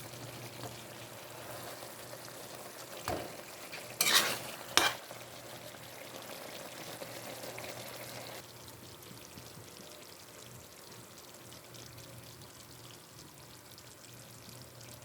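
Pan of chicken mechado sizzling steadily as it cooks, with a few sharp clatters about three to five seconds in, typical of stirring. After about eight seconds the sizzle turns quieter.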